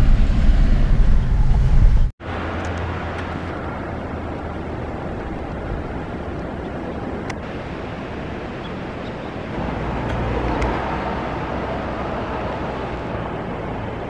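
Car driving on a wet road in rain: engine hum under a steady rush of tyre and road noise. A louder stretch ends abruptly about two seconds in; after that the rush is quieter and steady, swelling briefly around ten seconds in.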